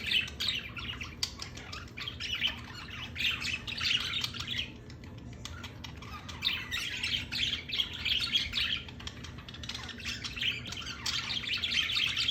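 Several pet birds calling in quick, chattering runs of chirps and squawks, easing off briefly about five seconds in.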